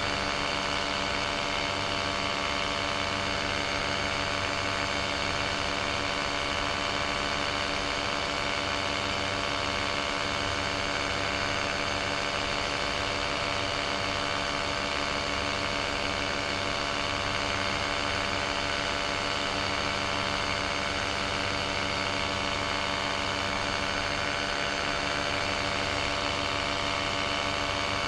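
Paramotor engine and propeller running steadily in level flight: an even drone that holds one pitch, with no change in power.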